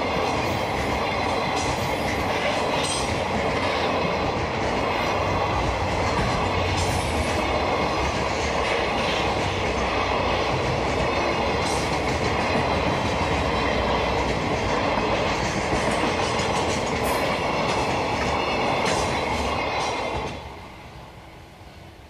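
Container freight train wagons running past a level crossing at speed, wheels clattering over the rail joints with the occasional sharp clank. A level-crossing bell rings under it. The noise drops away sharply near the end as the last wagon clears the crossing.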